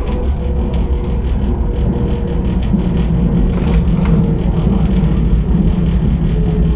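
AnsaldoBreda driverless metro train running through a tunnel, heard from inside the front of the car: a loud, steady low rumble of wheels on rails with a faint whine, and a click about four seconds in.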